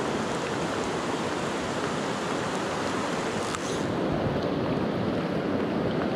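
Steady rush of a flowing river with rain falling on the water, with a few faint ticks on top.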